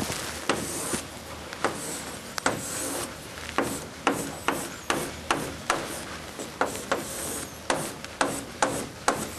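Chalk on a blackboard drawing a row of boxes: a run of sharp taps, about two a second, as short strokes are laid down, with scratchy scraping between them.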